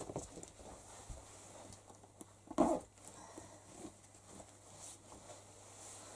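Faint small knocks and shuffling of people moving in a small room, with one short, louder thump about two and a half seconds in.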